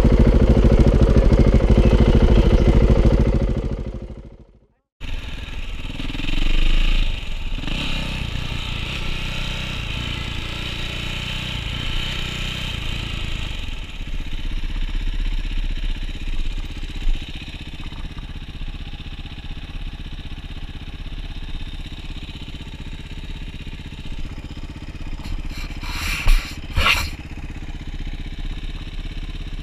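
A motorcycle engine running loudly and steadily fades out about four seconds in. After a short silence, a dirt bike's engine runs steadily under a rider's helmet camera at low speed, with a brief rise about two seconds after it starts and a couple of sharp clatters near the end.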